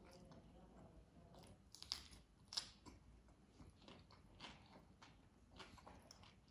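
Close-miked chewing of raw cucumber slice, with a handful of crisp crunches, the two loudest about two and two and a half seconds in.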